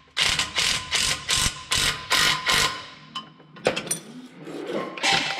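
Ratchet wrench cranked in quick strokes, about three a second, tightening a bolt down. The strokes stop about three seconds in, leaving a few scattered clicks.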